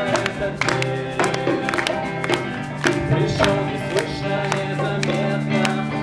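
Instrumental music with a steady beat and sustained low notes, the lead-in to a song before any singing starts.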